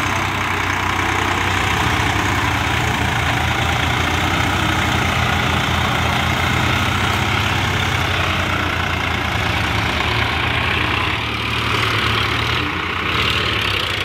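Diesel tractor engines running hard and steady under load as a Swaraj tractor tows a stuck Eicher tractor out of deep mud.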